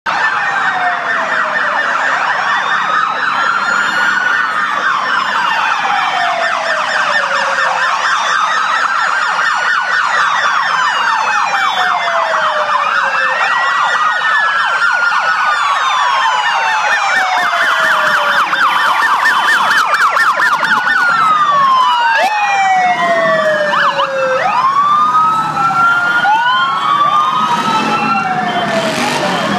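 Police motorcycle sirens: several wails rising and falling together every four to five seconds, over a fast yelp. Motorcycle engine noise grows underneath in the last several seconds as the escort comes closer.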